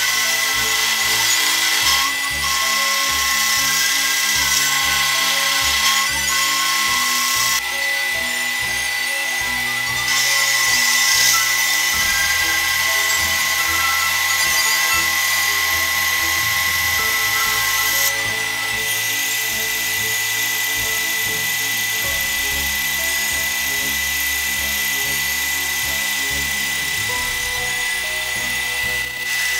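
A vertical milling machine's roughing end mill cutting a block of rifle-barrel steel, with a steady high whine, under background music.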